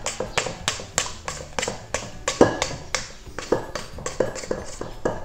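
Spatula knocking and scraping against a metal stand-mixer bowl while gathering up the edges of the dough: a quick, irregular run of taps, some with a short metallic ring.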